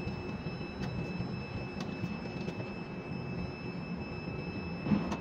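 Ship-to-shore quay crane machinery heard from the operator's cab: a steady low rumble and hum with a few faint ticks, and a single knock near the end.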